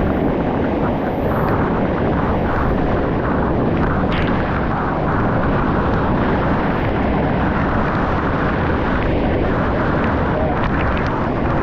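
Rushing water making a steady, loud, even roar, as of a waterfall or rapids close by.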